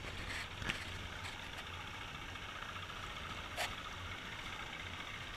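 Outboard motor of a small aluminium fishing boat running steadily just ahead, over the rush of water along a fibreglass dinghy's hull. Two short sharp knocks come through, one near the start and a louder one past the middle.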